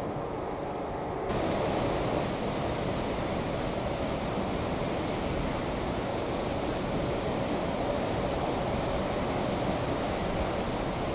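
Steady rushing wind noise with no distinct events. It turns louder and brighter about a second in, then holds steady.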